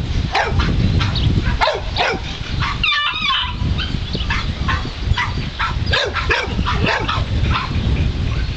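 A bulldog yipping and barking in many short, high, quick calls, over a steady low wind rumble on the microphone.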